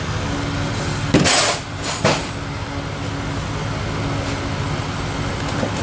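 A steady mechanical hum, with two short noisy clatters about a second in and again about two seconds in.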